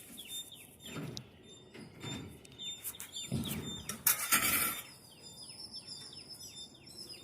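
A small bird chirping over and over in short, quickly falling notes, several a second toward the end. About four seconds in there is a brief, loud hiss-like noise.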